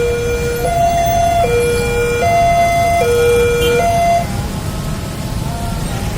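Railway level-crossing warning siren sounding an electronic two-tone alternation, a low note and a high note of under a second each, which the uploader finds off-key; it cuts off about four seconds in. A steady rumble of road traffic runs underneath.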